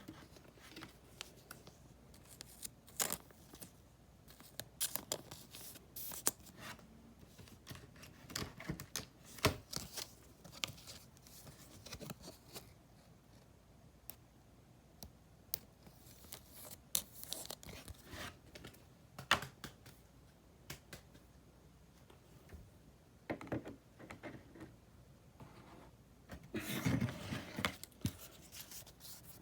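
Trading cards and plastic card sleeves being handled at close range: scattered light clicks, scrapes and scratchy slides as cards are slipped into holders and shuffled, with short pauses between bursts.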